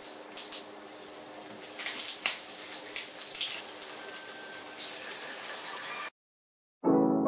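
Steady hiss of running water with scattered small clicks, cutting off abruptly about six seconds in. A jazz piano tune starts just before the end.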